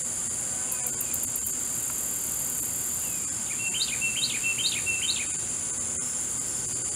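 Insects keep up a steady high-pitched drone. About halfway through, a small songbird sings one short phrase of four repeated rising notes.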